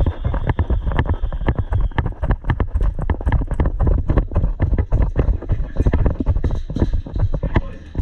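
Rapid, even footfalls of a person running over the ground, several heavy thumps a second, starting suddenly.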